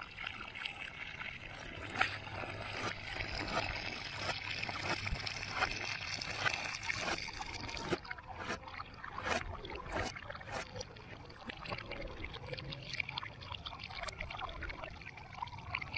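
Water from a garden hose pouring and splashing into a bucket that is already full of water, with many small splashes as a hand is held in the stream.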